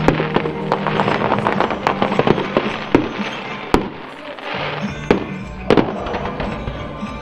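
Fireworks bursting: a dense run of crackles, then several single bangs a second or so apart, over music playing along with the show.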